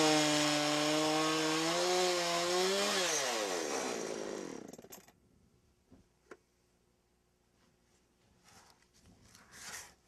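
Chainsaw on a Logosol Woodworker's Mill running at full throttle as it rips through the end of a lengthwise cut in a log. About three seconds in the throttle is released and the engine revs fall away until it goes quiet at about five seconds. A couple of faint knocks and some light handling sounds follow.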